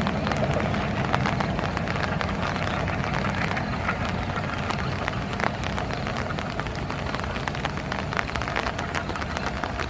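Passenger train of ICF coaches rolling past: a steady low rumble with a rapid, irregular clatter of wheels over the rails, slowly fading toward the end.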